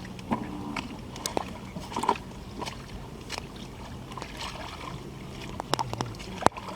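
Water sloshing and splashing in a shallow pond, with irregular sharp splashes and clicks scattered throughout.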